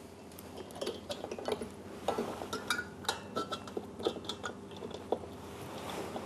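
Scattered metal clicks, clinks and light knocks from the adjustment mechanism of an ab-crunch machine as its incline is moved by hand, one notch lower.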